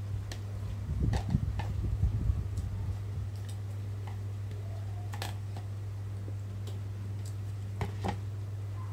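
A plastic spoon clicking and scraping in a plastic food tub while eating: a cluster of small clicks about a second in, one more in the middle and two near the end, over a steady low hum.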